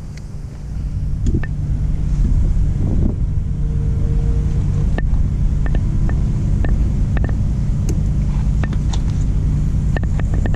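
An engine running steadily at idle, a low even hum, with scattered sharp clicks and taps from about halfway through.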